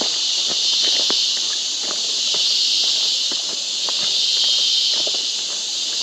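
A steady high-pitched chorus of insects, with irregular footsteps on the walking path.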